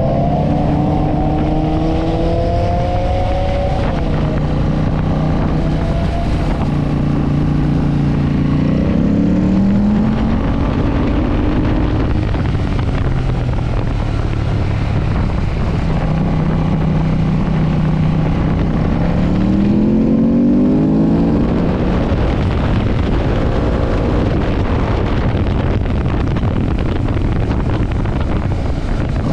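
Ducati S4RS motorcycle's L-twin engine pulling hard at speed. Its pitch climbs through the revs several times, drops back at gear changes and when the throttle closes, and holds steady for a few seconds in between, all under heavy wind rush.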